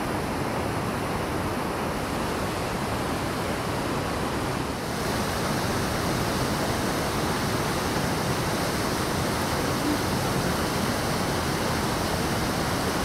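Creek rapids rushing over rocks, a steady wash of water noise. About five seconds in it turns slightly louder and hissier.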